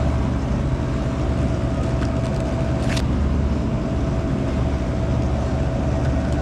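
Steady low mechanical hum and rumble of a supermarket refrigerated drinks case, with a faint steady whine over it. There is a short click about three seconds in.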